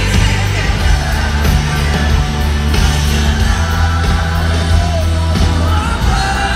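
Live pop-rock band and lead vocal played loud over a stadium PA, heard from among the crowd, with a heavy bass.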